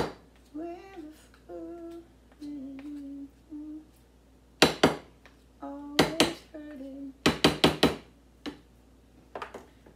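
A woman humming a tune in short held notes, broken by quick runs of sharp clacks as a wooden spoon and spatula knock against the bowl while she mashes sweet potato. The clacks come in three clusters, about halfway through and just after, and are louder than the humming.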